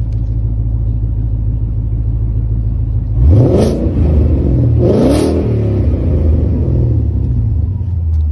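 Classic Ford Mustang engine idling, then revved twice in quick succession, about three and five seconds in, each a fast rise and fall in pitch, before settling back to idle.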